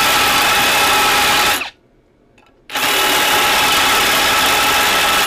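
Electric drill running with a blue multi-purpose, masonry-tipped bit boring into a steel angle bar, a steady motor whine over the cutting noise. It stops about a second and a half in, then starts again about a second later: the hole is being widened so that a rebar fits it without passing through.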